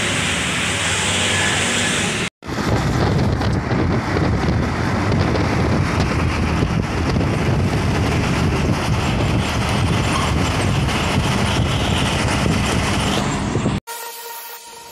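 Street traffic by a busy road, then after a cut, steady engine and road noise heard from inside a moving car on a highway. It cuts off suddenly near the end.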